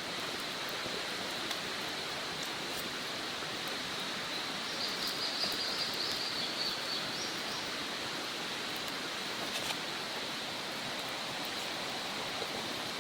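Steady outdoor rushing hiss with a few faint, sparse crackles, typical of a small wood fire burning. A bird sings a high, broken call for about two seconds near the middle.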